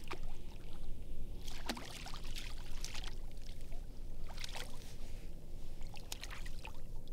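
A hooked speckled trout splashing at the water's surface as it is reeled in, a scattered series of short splashes over a steady low wash of water.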